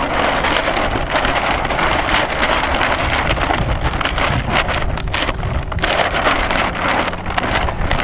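Wind buffeting the microphone: a loud, rough rushing, broken up by many short crackles.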